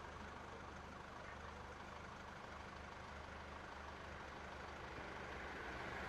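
Fire engine idling: a faint, steady low engine hum that grows slightly louder near the end.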